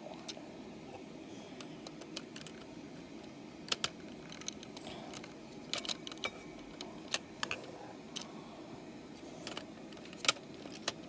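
Plastic LEGO bricks clicking and rattling as they are handled and pressed into place: a scatter of sharp, irregular clicks, the loudest a little under 4 seconds in and near the end, over a steady low background noise.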